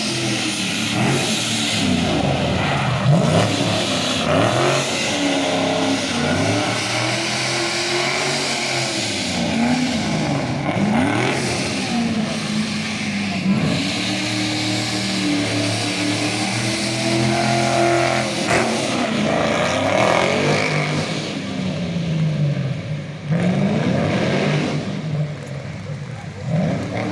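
Rally car engine revving hard, its pitch rising and falling over and over as it accelerates and backs off.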